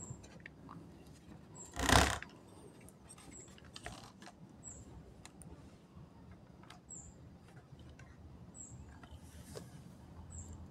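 Handling sounds from a laptop being switched on: one short loud rustle about two seconds in, then scattered faint clicks. Short faint high chirps recur every second or two.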